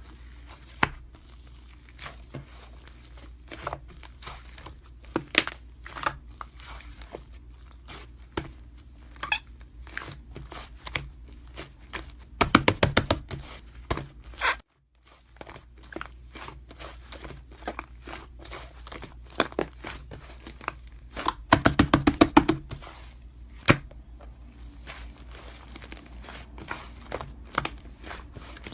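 Hands playing with slime: scattered sticky clicks and crackles, with two bursts of rapid popping, about twelve and twenty-one seconds in.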